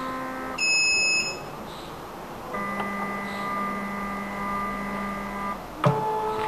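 Electrolyte analyzer (XI 921) giving one high beep lasting under a second, about half a second in. Around the beep is a steady hum of several held tones that changes pitch twice, with a sharp click shortly before the end.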